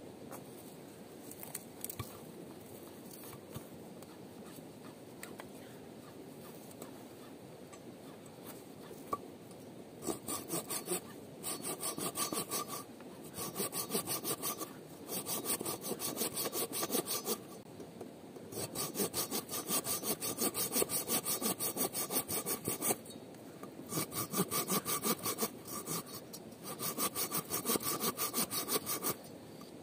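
Hand saw cutting wood in quick back-and-forth strokes, starting about a third of the way in and coming in several bouts with short pauses between them. Before the sawing there is only a steady low background rush.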